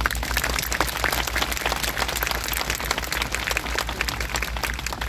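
Large crowd applauding, a dense steady patter of many hands clapping over a low steady rumble.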